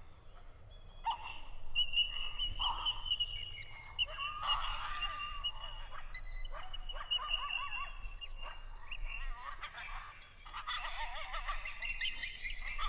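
Coyotes yipping and howling in several bursts of wavering, high-pitched calls, with a long held howl in the first half.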